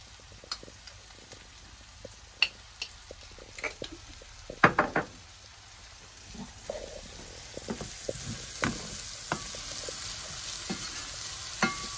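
Diced meat, onions and peppers sizzling as they sauté in a stainless steel pan, with a wooden spoon scraping and knocking against the pan as it is stirred. The knocks are scattered, the loudest a little under halfway, and the sizzle grows louder in the second half.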